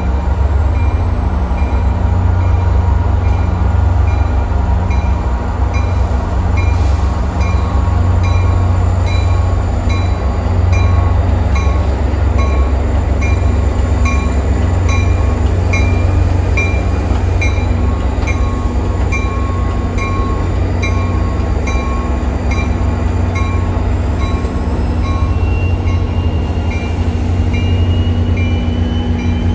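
Deep, steady rumble of NJ Transit diesel locomotives running as a commuter train moves through the terminal tracks. A bell dings about twice a second from about six seconds in, and a thin rising whine comes near the end.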